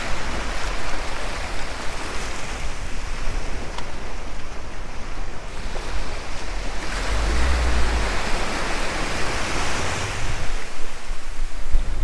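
Surf from a choppy sea washing in over the sand in the shallows, with gusts of wind rumbling on the microphone about seven seconds in and again near the end.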